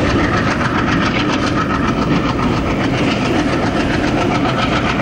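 Sabarmati Express passenger train running, a steady rumble and rattle heard from inside a coach.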